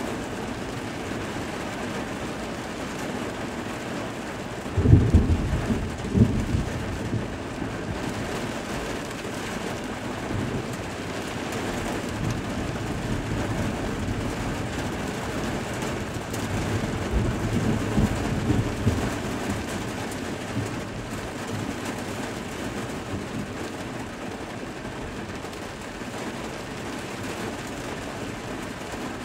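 Steady rain, with a sudden crack of thunder about five seconds in that rolls on as a low rumble. The rumble swells again a little past the middle and then fades back under the rain.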